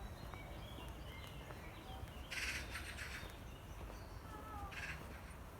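Birds calling: a few thin whistled notes and short gliding calls, then two bursts of rapid chattering, one about two seconds in and a shorter one near the end, over a low steady background rumble.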